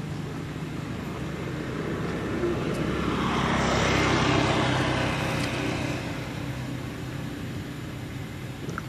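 A motor vehicle passing by, its engine and tyre noise swelling to its loudest about four seconds in and then fading away, over a steady low hum.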